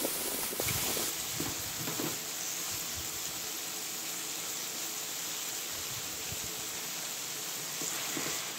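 Carrot sticks sizzling in oil in a frying pan, a steady hiss, with a few light clicks of tongs against the pan in the first couple of seconds.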